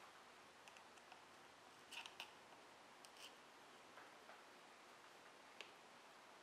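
Near silence with a few faint, light clicks from a Kershaw Speedsafe assisted-opening folding knife's handle being pried apart: a pair about two seconds in, another pair about three seconds in, and a single one near the end.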